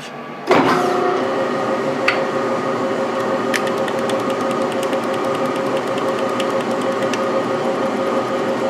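Hasler hand tachometer whirring as its rubber tip is pressed onto a spinning lathe chuck, its gear train running with steady tones and fine ticking throughout, over the lathe running. It starts suddenly about half a second in as the tip engages.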